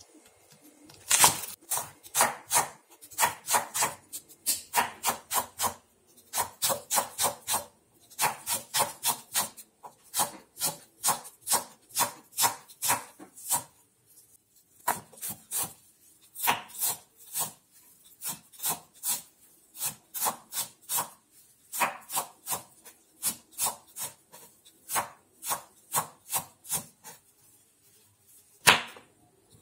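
Kitchen knife chopping spring onions, then parsley, on a wooden cutting board: quick knocks of the blade on the wood, about three a second, in runs with short pauses.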